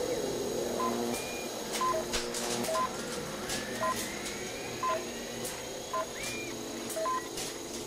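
Electronic sound effect: short two-pitch beeps, a higher and a lower note about once a second, over a steady low electronic drone that shifts in steps, with a few faint rising whistles.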